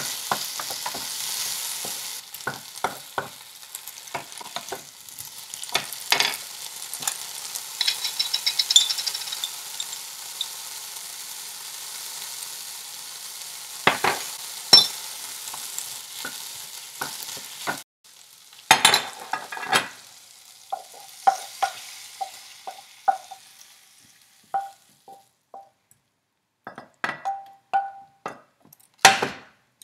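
Chopped okra sizzling in a frying pan while a wooden spatula stirs it, knocking and scraping against the pan. The sizzle cuts off suddenly a little past halfway, leaving only scattered spatula taps and scrapes on the pan.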